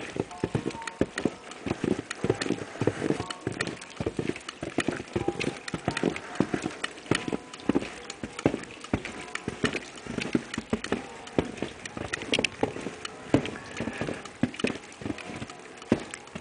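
Footsteps crunching in fresh snow on a walkway, one step after another at a walking pace.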